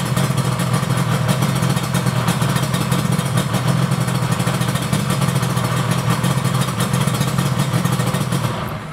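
Yamaha R1-Z 250's two-stroke parallel-twin engine idling steadily on its freshly rebuilt top end, after a piston seizure. The sound cuts off just before the end.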